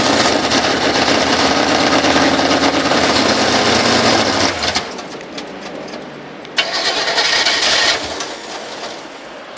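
A 1998 mud truck's cold engine being cranked over on a weak battery that is not holding a charge: a long stretch of cranking that stops about five seconds in, then a second short crank about a second and a half later.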